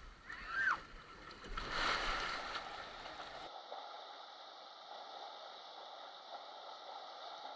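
Water rushing along a tube slide as an inflatable ring rides down it, with a brief high-pitched cry near the start and a louder surge around two seconds in. After about three and a half seconds it cuts abruptly to a quieter, steady rush of water.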